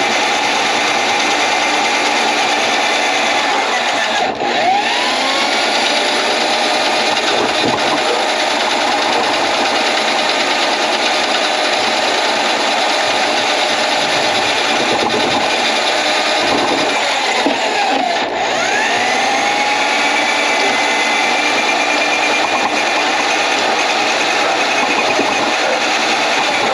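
Electric drain-cleaning machine (power auger) running steadily with a motor whine while clearing a grease-clogged kitchen drain line. The motor briefly drops out twice and winds back up to speed each time.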